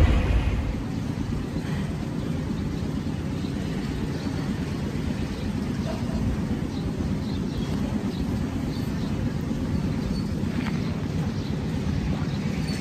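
Car cabin road rumble cuts off less than a second in. It gives way to a steady low outdoor background rumble with faint high chirps scattered through it.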